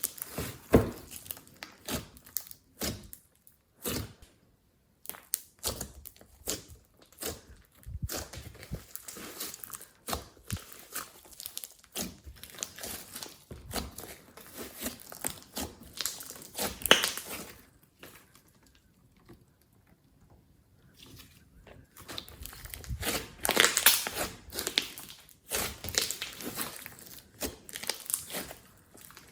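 Glossy slime being squished and stretched by hand, making irregular sticky clicks and crackles. There is a quieter pause of a few seconds after the middle, then a louder run of squishing.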